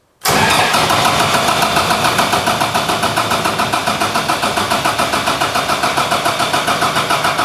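Kubota diesel generator engine turned over by its electric starter without firing, in a fast, even pulsing rhythm, because its fuel solenoid is unplugged: a dry crank to build oil pressure before a first start. It starts about a quarter second in and stops near the end.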